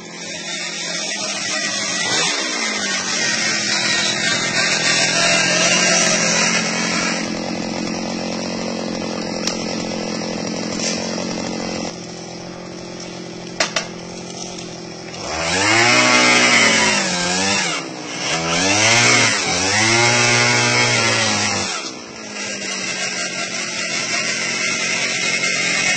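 Small engine of a motorised palm-tree climbing machine running steadily, then revved up and back down twice in a row in the second half.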